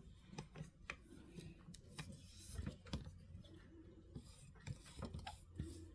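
Faint handling noise as the camera is moved over a diamond painting canvas: scattered light clicks and taps over a low rumble.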